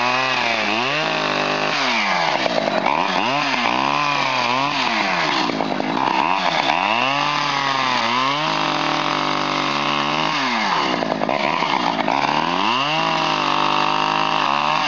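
Two-stroke chainsaw engine revving up and down over and over, the pitch rising and falling every second or two, with a short stretch held at steady speed about halfway through.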